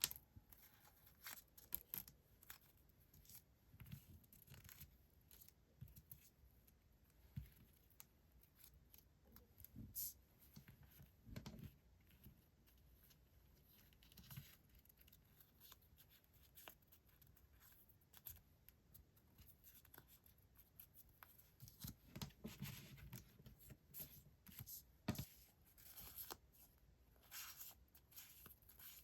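Faint, scattered paper rustling and small clicks and taps of stationery items and their packaging being handled, with a few louder clusters of crinkling.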